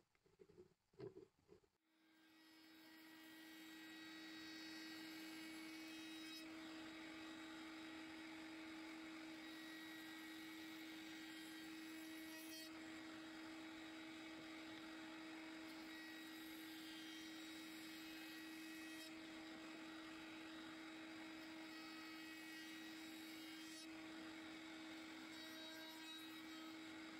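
Table-mounted wood router spinning up about two seconds in and then running steadily at an even pitch, its bearing-guided bit turning freely. A few light knocks come before the motor starts.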